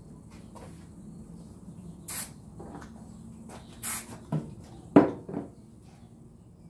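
Two short hisses from an aerosol can of spray adhesive, about two and four seconds in, followed by a few sharp knocks on the plywood board, the loudest about five seconds in.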